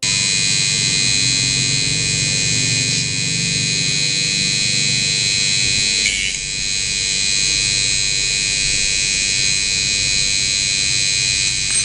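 Small electric mini grinder running at steady speed with a high-pitched whine, briefly dipping in level about six seconds in.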